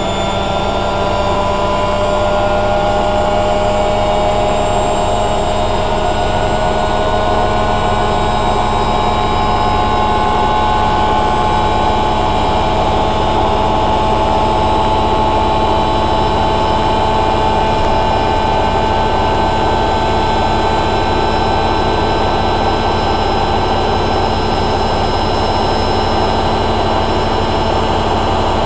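Hoover A3786 Logic Deluxe washing machine spinning at high speed on its final spin: the motor and drum whine rises over the first several seconds, then holds steady.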